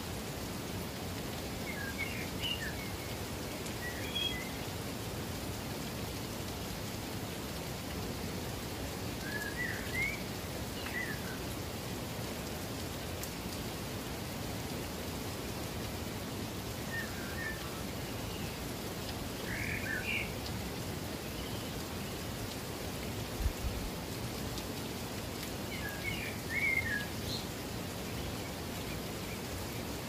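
Steady rushing water, an even hiss, with a songbird singing short chirping phrases every few seconds over it. A brief low thump comes a little past the middle.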